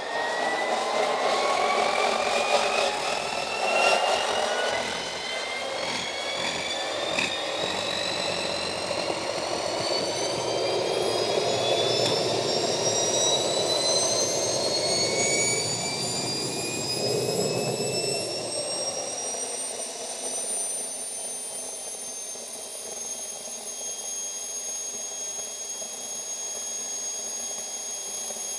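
Gas-turbine jet engine on a garden tractor spooling up: a whine that climbs steadily in pitch over a rushing roar, with a couple of sharp pops in the first several seconds. About two-thirds through, the roar eases off and the whine levels out at a steady high pitch.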